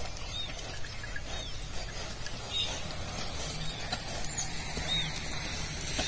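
A bird giving a short, high, arched call over and over, roughly once a second, over a low outdoor rumble.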